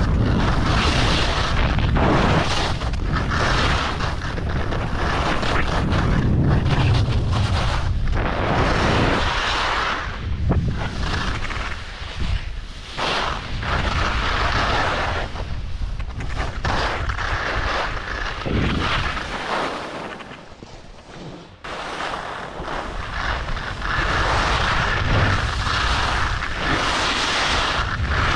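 Wind buffeting the microphone of an action camera at skiing speed, mixed with the rush and scrape of skis carving over groomed snow. It surges and eases with each turn and drops away briefly about twenty seconds in.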